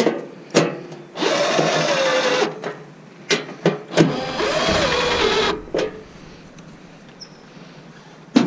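Small cordless power driver turning a screw in two runs of about a second and a half each, its motor pitch wavering under load, with a few sharp clicks before and between the runs.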